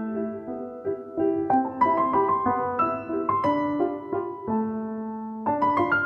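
Background piano music: a slow melody of struck notes and chords, each note ringing and fading.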